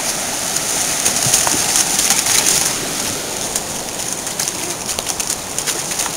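Fast-flowing river water rushing over rocks as a steady hiss, with a dog splashing through the shallows; the splashes come as quick irregular slaps, thicker in the second half.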